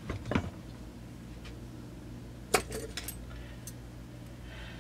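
A few light clinks and taps of small metal parts and tools being handled on a workbench: a cluster right at the start and a sharper one about two and a half seconds in, followed by two fainter ones. A steady low hum runs underneath.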